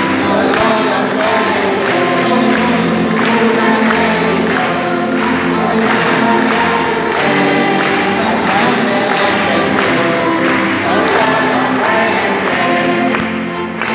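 Live gospel praise music: voices singing together over an electronic keyboard, with a steady percussive beat.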